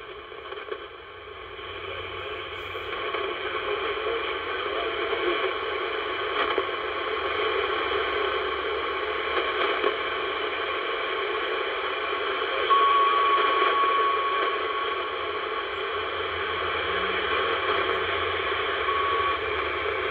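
Royce CB radio receiver tuned to channel 19, its speaker putting out a steady hiss of static that swells over the first few seconds. A thin steady whistle sounds through the static for about two seconds past the middle and again briefly near the end.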